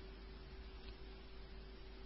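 Faint background hiss and steady electrical hum with a thin constant tone, the room and microphone noise of a voice recording; a single faint tick about a second in.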